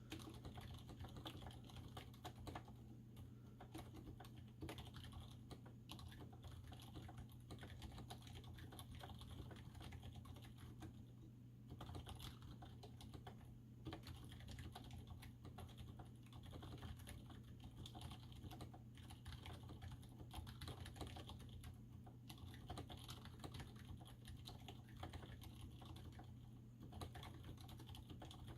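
Typing on an Input Club Kira mechanical keyboard with 62 g v1 Zilents silent tactile switches on Outemu springs. It is a very quiet run of soft, muffled keystrokes, with no click.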